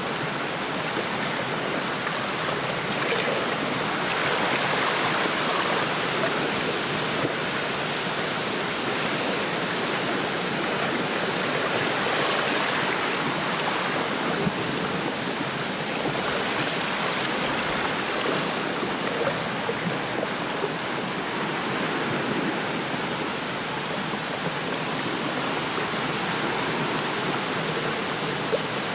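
Wind blowing through a lakeside reed bed with small waves lapping at the shore: a steady rushing wash that swells and eases every few seconds.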